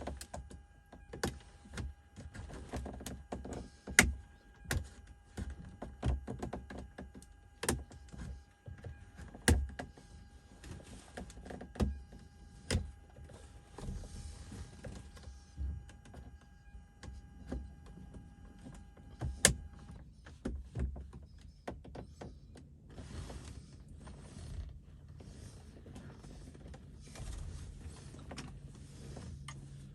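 Irregular plastic clicks, taps and knocks as a flat screwdriver pries the dashboard trim around the radio and console of a 2011 BMW 328i. A faint steady high tone hums underneath and stops about two-thirds of the way in.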